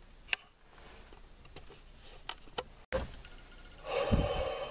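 A few faint clicks, then near the end a man's loud, breathy exhale close to the microphone: a hunter winded with excitement right after dropping a buck.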